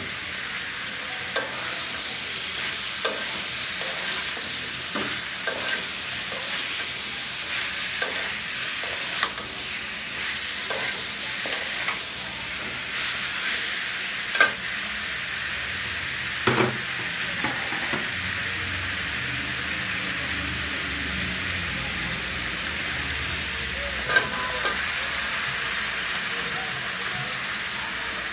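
Vegetables sizzling in hot oil in an aluminium karahi, with a metal spatula scraping and clinking against the pan now and then as they are stirred.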